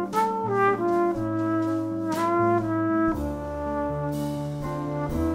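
Jazz trio playing live: a trumpet carries the melody in a string of held notes over a keyboard piano and a drum kit, with cymbal strikes now and then.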